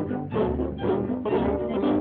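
Cartoon score music with a low bass line and a steady bouncing beat, about two beats a second.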